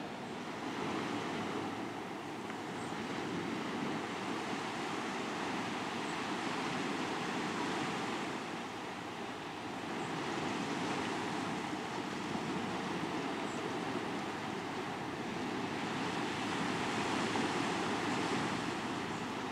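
Steady rushing of surf and wind, swelling and easing every few seconds.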